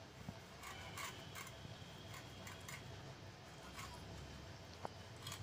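Faint, irregular clicks and soft scraping as soft Bombay duck (lote) fish is cut and slit against a boti, a curved iron blade on a floor stand.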